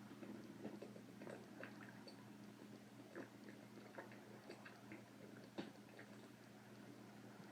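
Near silence: faint, scattered clicks and taps, a dozen or so at uneven intervals, over a low steady hum.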